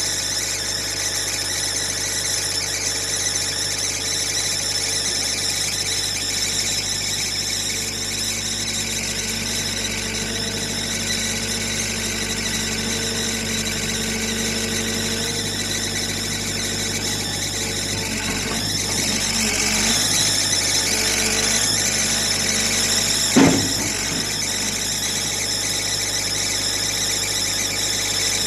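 JCB 3DX backhoe loader running with a steady high-pitched squealing whine over the engine note. The engine's pitch and level shift upward for a few seconds as it works harder, and there is a single sharp loud knock late on.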